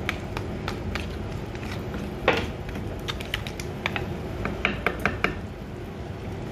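Wooden spatula stirring crab pieces in a thick masala in a pot, with irregular clicks and knocks of the spatula and crab shells against the pot. One louder knock comes a little over two seconds in and a quick run of clicks about five seconds in, over a steady low rumble.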